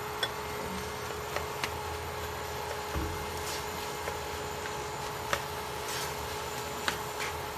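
Black spatula scraping and tapping against a nonstick wok as crumbled tofu is stirred in a little water: scattered light clicks and scrapes over a steady hum.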